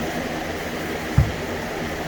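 Steady scrubbing of fine sanding sponge and K800 abrasive rubbing over a helmet's clear coat, with a single dull low thump about a second in.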